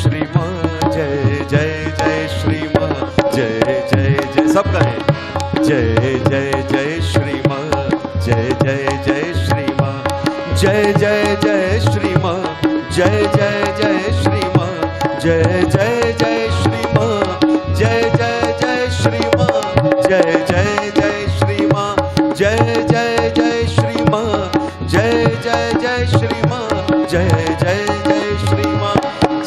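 Bhajan accompaniment: tabla and dholak drumming a busy, steady rhythm under a harmonium melody, with a held note sounding throughout.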